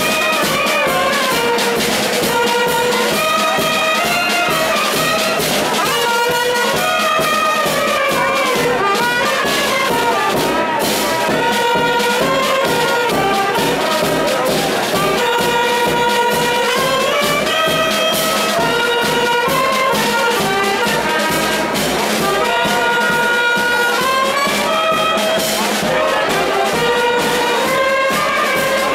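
Brass band of trumpets, saxophone, clarinet and bass drum playing a tune, with the melody carried by the horns over a steady drum beat.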